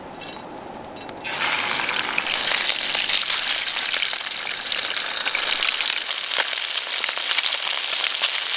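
Salted pike slices frying in hot oil in a pan. The sizzle comes in suddenly about a second in as fish goes into the oil, then holds loud and steady with fine crackling.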